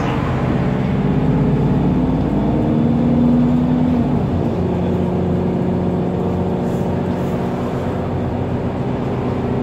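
Cummins ISB6.7 diesel engine of a Solaris Urbino 10 city bus, heard from inside the passenger cabin while the bus drives. The engine note climbs a little as the bus accelerates, then drops about four and a half seconds in as the Voith D851.3 automatic gearbox shifts up, and it runs on steadily.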